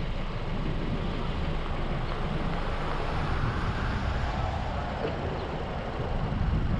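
Road traffic: a steady low rumble of vehicle engines and road noise, with one vehicle's sound swelling and fading about halfway through.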